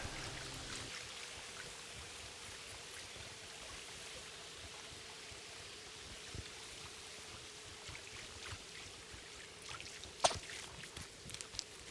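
Small creek water running steadily, a soft even rush, with a few sharp clicks, the loudest about ten seconds in.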